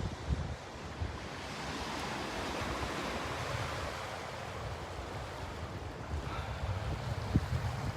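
Steady rushing of sea waves and wind, with gusts of wind buffeting the microphone.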